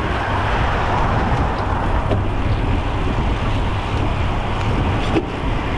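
Steady wind rush buffeting the microphone of a camera on a moving road bicycle, with tyre and road noise underneath.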